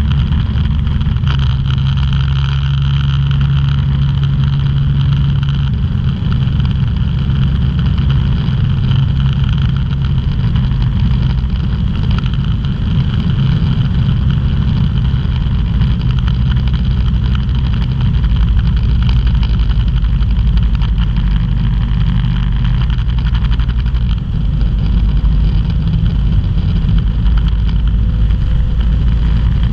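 Ultralight aircraft's engine droning steadily in flight, with wind rushing past the cockpit. The engine note shifts slightly a few times as the power changes.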